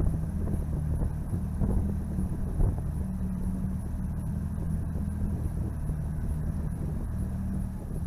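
An engine idling: a steady low hum whose pitch shifts slightly now and then, with a few faint knocks over it.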